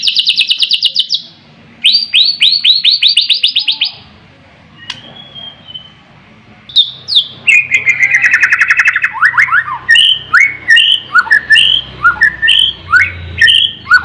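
White-rumped shama singing: fast trills of repeated rising notes, a quieter pause of about two seconds midway, then a falling run and a string of clear slurred whistles at about two a second.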